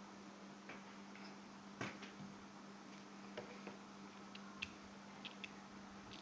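Faint, scattered light clicks and taps of hands handling small quilled paper rings and a hot glue gun on a tabletop, over a faint steady low hum.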